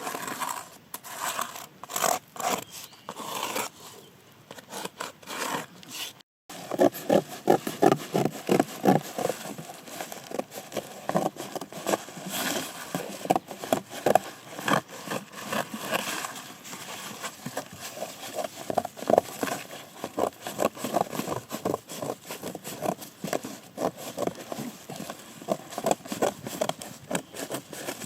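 Hand-tool work on a trap build: many quick, irregular scraping and tapping strokes, broken by a short silence about six seconds in.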